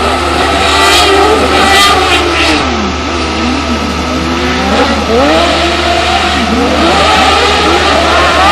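Several autocross buggy engines revving hard on a dirt track, overlapping, their pitch rising and falling again and again as they accelerate, shift and lift off through the corners.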